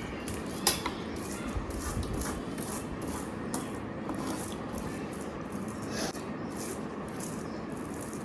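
A person chewing food close to the microphone: a quick, irregular run of crunchy, rasping chews several times a second, with a sharper crunch about a second in.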